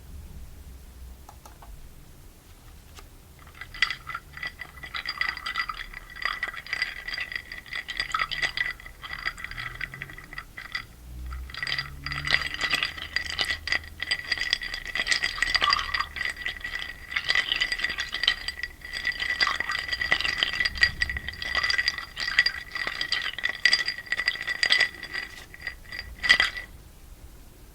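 Ice cubes rattling and clinking against a drinking glass: rapid, irregular clinks over the glass's ringing tone. They start a few seconds in and stop near the end with one sharp, loud clink.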